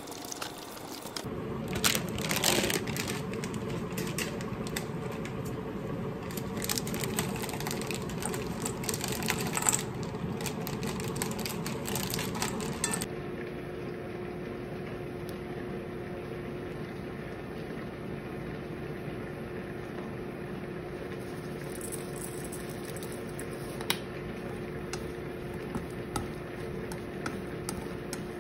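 Kitchen food-prep sounds: utensils clicking and tapping against a stainless steel bowl, thick in the first half and only now and then later, over a steady low hum.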